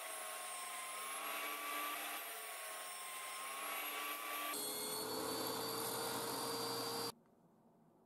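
Table saw (a circular saw mounted under a table) running and cutting through a block of glued plywood, with a steady whine. About four and a half seconds in, the whine jumps lower, and the sound cuts off abruptly near the end.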